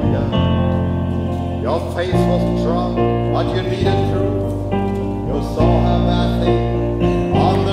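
Slow background music with held chords, the bass note changing every second or two, and a voice singing over it.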